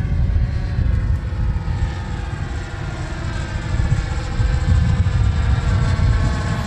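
Twin two-stroke engines of a twin-engine RC model airplane droning in flight, their pitch slowly falling as it passes, over a heavy low rumble of wind on the microphone.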